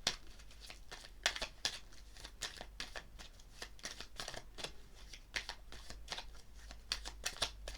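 A tarot deck being shuffled and handled by hand: a run of short, irregularly spaced card flicks and slaps.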